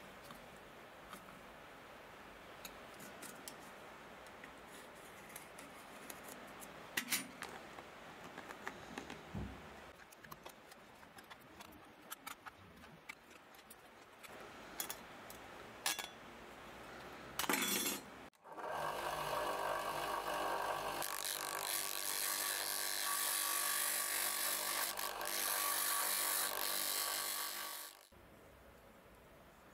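Small metal hand-tool clicks and snips: a screwdriver on a burner part and tin snips cutting thin sheet metal. About two-thirds of the way in, a bench disc sander starts and runs steadily, loudest of all, with a part held against the abrasive disc, then stops abruptly near the end.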